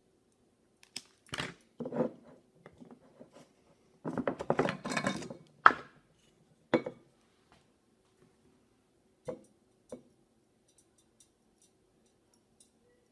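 Handling of lab gear on a tabletop: knocks and clinks, then a stretch of scraping and rattling about four seconds in, as the plastic screw lid comes off a glass jar and is set down, a lighter is put down, and a wooden board carrying the charcoal on its wire is laid over the jar's rim. A few single knocks follow, then only faint ticks.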